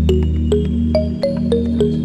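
Background music: short plucked synth notes, about two a second, over a sustained low bass.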